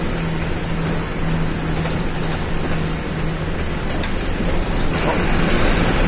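City bus (Caio Apache Vip 4) under way, heard from the driver's seat inside the cabin: a steady engine drone with road noise, growing a little louder about five seconds in.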